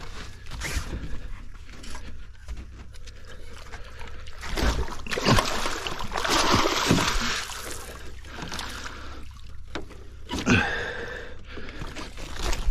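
A large blue catfish thrashing and splashing in the water as it is scooped into a landing net, the heaviest splashing coming in the middle.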